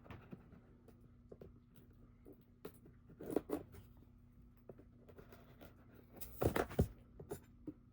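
Knife slicing through packing tape on a cardboard box: soft scrapes and clicks, with two louder tearing strokes, one in the middle and one near the end.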